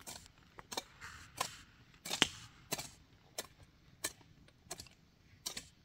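Metal hand hoe chopping into the earth in steady, regular strokes, about three every two seconds. One strike about two seconds in is the loudest.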